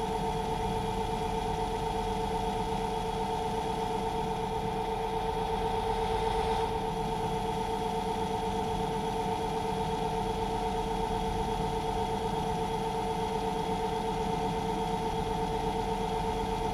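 Lathe running steadily, driving a small milling cutter that slowly cuts a keyway into a shaft. A steady two-pitched whine over a low hum; the cut itself is barely audible.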